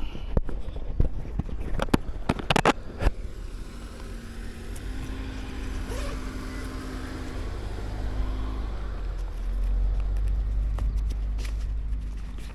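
A motor vehicle's engine running nearby, with a steady hum that fades after about eight seconds. Low wind rumble on the microphone runs throughout. A few sharp knocks come in the first three seconds.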